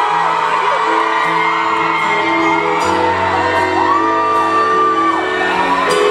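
Live pop band playing in a hall, with high voices whooping and singing over the music.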